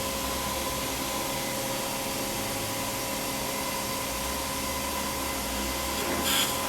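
A steady machine hiss with a low hum, with one short sharp click or clatter about six seconds in.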